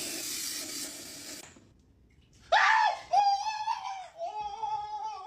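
A person screaming in a high, long, wavering pitch, starting about halfway through, a startled reaction to being doused with water taken for boiling. A short hissing noise comes in the first second or so, before a brief hush.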